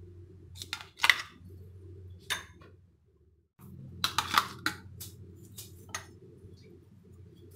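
Metal spoon clinking and scraping against a glass bowl and the mixer jar as thick chutney is scooped out: a few sharp clinks, the loudest about a second in, and a quick cluster about four seconds in, over a low steady hum.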